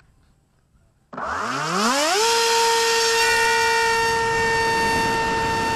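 Brushless electric motor (NTM 2836 2200kV) with a 6040 APC propeller spooling up about a second in: a whine rising quickly in pitch, then holding steady over a rush of prop and wind noise as the flying wing launches.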